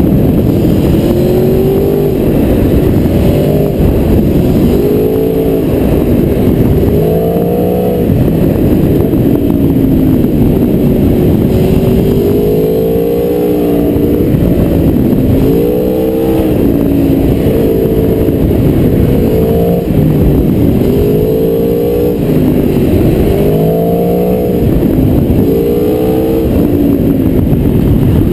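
Aprilia Tuono V4R's V4 engine on the move, revving up and dropping back again and again through a run of bends, its pitch rising under acceleration and falling off between.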